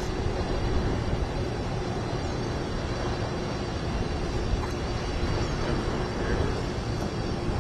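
Aircraft engines running steadily, a continuous low rumble with a steady hum through it.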